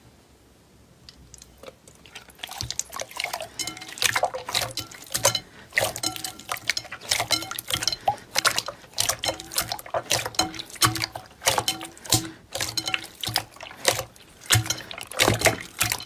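Clear slime being pressed and kneaded by hand in a glass bowl: wet squishing with a rapid, irregular crackle of small pops and clicks that starts about two seconds in.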